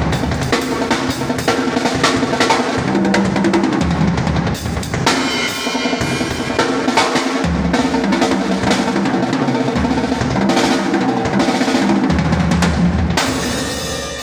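Acoustic drum kit played continuously in fast, busy patterns of bass drum and snare hits. Near the end a final cymbal crash is struck and rings out, fading away.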